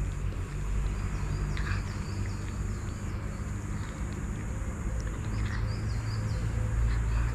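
A steady low rumble with a small bird twittering in short phrases twice, over faint crunching of cats eating dry kibble.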